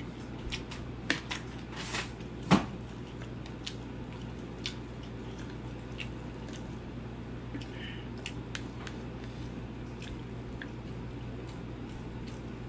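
Close-up eating sounds: wet chewing and mouth clicks as rice and pork curry are eaten by hand, with scattered small ticks and one louder sharp click about two and a half seconds in.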